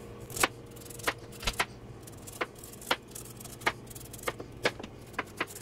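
Carver's knife slicing strips off a carrot on a plastic cutting board, the blade tapping the board in sharp clicks, irregular at first and coming faster near the end.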